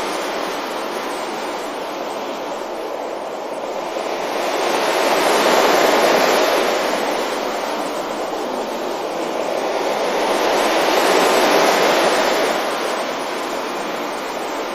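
Ocean waves breaking and washing up a beach in a steady rush, swelling twice and easing back between.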